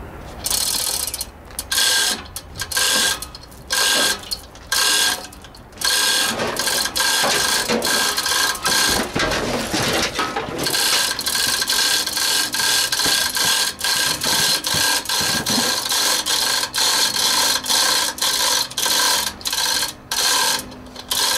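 Manual chain hoist on a steel gantry being hand-pulled, its gears and pawl clicking in repeated ratcheting bursts as it lifts an engine. The bursts are spaced out at first and come quickly and almost without a break from about six seconds in.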